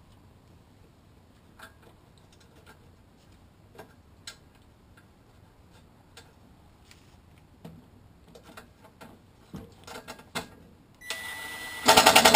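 Scattered light clicks and taps of hand tools and metal parts during engine reassembly, growing busier toward the end, then a loud, rapid mechanical rattle near the end.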